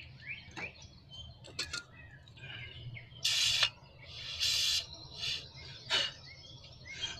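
Small birds chirping in short rising notes. About halfway through, two short hissing bursts of about half a second each are the loudest sounds, and there are a few sharp clicks.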